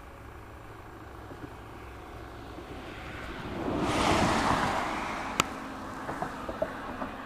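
A car passing on the road, its noise swelling to a peak about four seconds in and fading away. A sharp click follows, then a few small knocks as the camera is handled.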